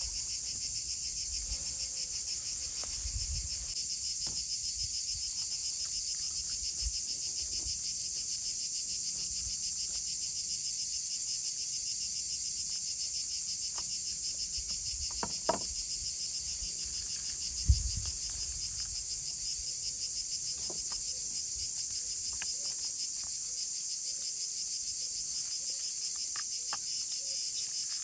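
A steady, high-pitched chorus of insects trilling continuously. Two sharp knocks on the wooden cutting board come a little past halfway, the second one louder.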